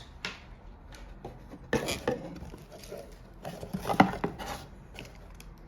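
Unboxing sounds: the charger's accessories and their packaging being handled on a table, with scattered light clicks and rustles. The sharpest click comes about four seconds in.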